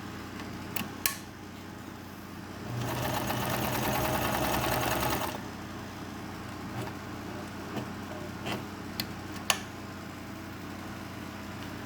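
Viking sewing machine running and stitching for about two and a half seconds, a few seconds in, with a rapid even needle rhythm. A few sharp clicks come before and after it.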